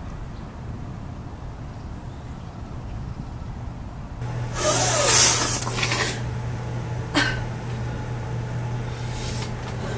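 A low wind-like rumble gives way about four seconds in to a steady low electrical hum. Over the hum, a person lets out a loud noisy breath through the nose lasting about a second and a half, then a short sharp sniff-like burst about a second later.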